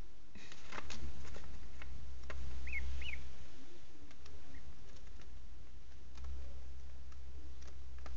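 Cayuga ducklings giving two short, soft peeps close together about three seconds in, with scattered light taps and rustling as they move about on towels, over a steady low hum.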